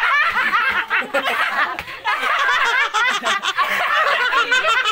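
Several people laughing together in a quick run of short, overlapping laughs.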